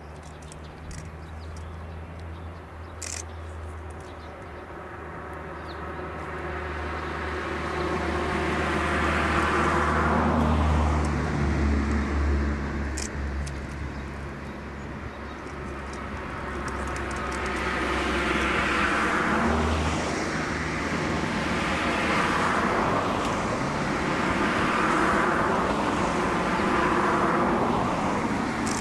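Tobu 6050 series electric train approaching on the track, its wheel-on-rail rumble and running noise growing louder in waves as it nears, over a low steady hum that stops about two-thirds of the way through.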